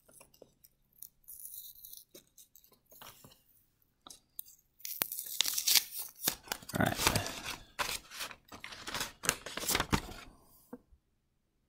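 Paper bank strap torn open on a stack of one-dollar bills, a loud papery ripping and crackle starting about five seconds in after faint handling, then the bills rustling as they are handled.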